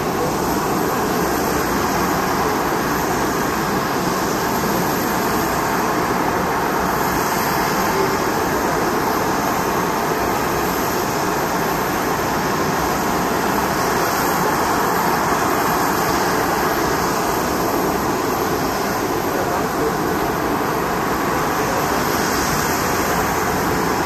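Steady airport ramp noise from aircraft and ground equipment around a parked Boeing 747-8F freighter: an even rushing roar with no breaks, and a faint high steady whine over it.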